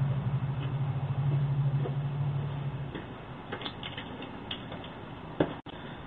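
Porch ambience picked up by a Ring Video Doorbell Wired's microphone at night. A steady low hum runs until it stops about halfway through. Faint scattered ticks follow, with a single sharp click near the end.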